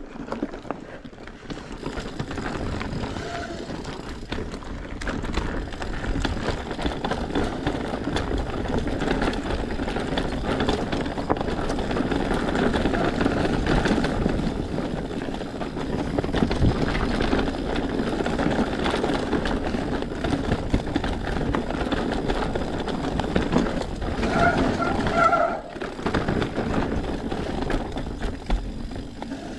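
Mountain bike ridden fast down a dirt singletrack: tyres rumbling and crunching on dirt, with the bike rattling over bumps. It gets louder as speed builds over the first few seconds. A brief high squeal comes near the end.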